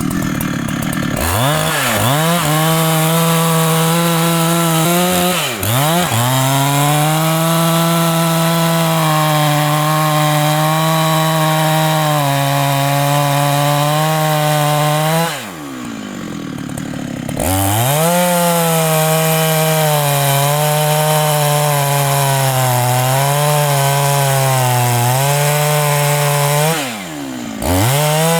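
Large Husqvarna two-stroke chainsaw cutting at full throttle, its pitch wavering as it loads up in the cut. It drops off throttle four times, longest about halfway through, each time revving straight back up.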